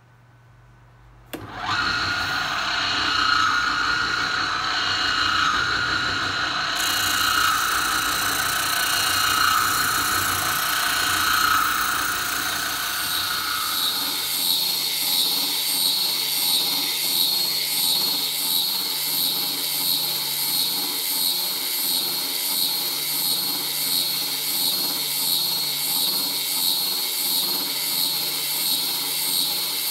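Oscillating spindle sander running, with a hardboard template pressed against its sanding drum. The machine noise comes in suddenly about a second in, and through the second half it pulses in a regular rhythm.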